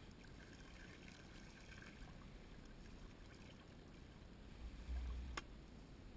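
Faint lapping and trickling of shallow bay water around a wading angler, with a low bump and one sharp click about five seconds in.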